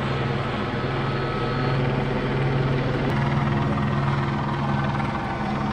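Helicopter hovering, a steady rotor beat over its engine hum.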